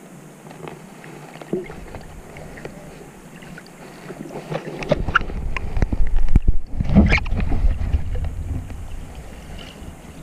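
Water moving around an underwater camera in shallow rocky sea, with scattered small clicks and crackles. About five seconds in, a louder rushing surge with a low rumble swells up and then eases off over the next three seconds.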